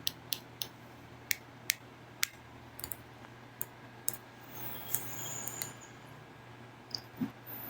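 A dozen or so small, sharp clicks and taps at irregular intervals over a faint steady low hum.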